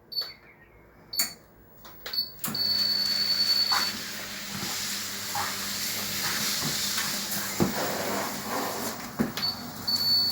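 Trojan treadmill console beeping as its buttons are pressed, then a long beep as the treadmill starts. Its motor then runs with a steady hum and hiss while the belt rolls and the deck incline is raised, with a few light knocks.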